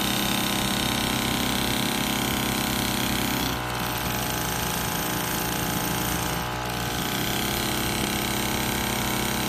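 Miniature two-cylinder compound model steam engine running fast with a steady mechanical clatter. Its note changes and drops for about three seconds in the middle, with a brief knock at the start and end of that stretch, then settles back to the steady run.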